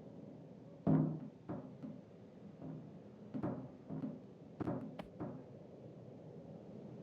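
A series of about eight irregular dull thumps or knocks with a short low ring after each, the first, about a second in, the loudest.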